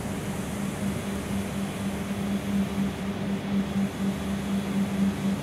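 Interior noise of a Gillig low-floor city bus under way, heard from inside the cabin: steady engine and road noise with a low hum that pulses at an even rhythm.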